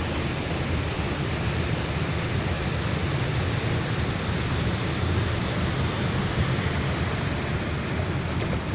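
Steady wind buffeting the microphone: an even rushing noise with a heavy, fluttering low rumble.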